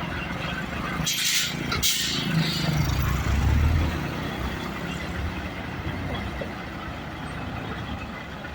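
Heavy diesel truck with two short air hisses about a second apart, typical of air brakes being released, followed by the engine revving up briefly and settling back to a steady idle.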